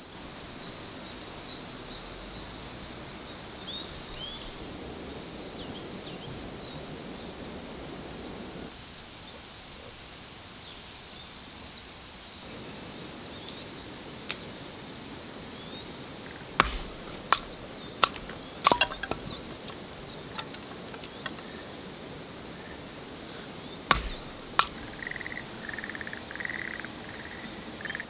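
Outdoor ambience with a few small bird chirps; from a little past halfway, a run of sharp knocks and cracks, then a short series of repeated tones near the end.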